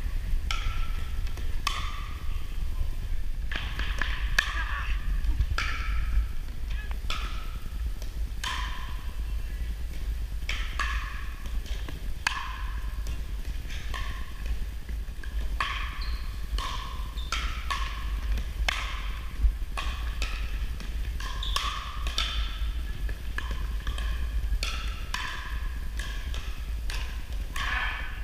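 Pickleball paddles striking a hard plastic ball in a rally: sharp pops about once a second, each ringing briefly in the gymnasium, over a steady low hum.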